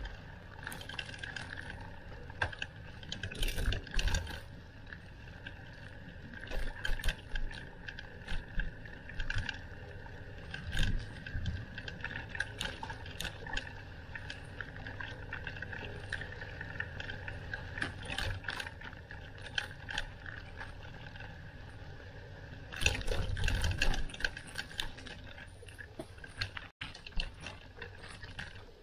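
Bicycle rattling and clicking over bumps in the road while riding, over a steady high hum, with a louder burst of rattling late on.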